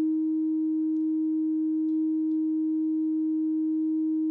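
Steady test tone from a turntable test record, picked up by a Triangle Art Apollo cartridge: the antiskate track, one unwavering pitch with faint overtones, the distortion that the test listens for.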